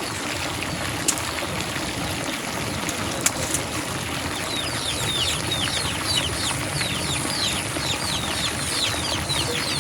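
Steady rush of running water, with a small bird calling in a fast series of short, high, downward-sliding chirps from about halfway through.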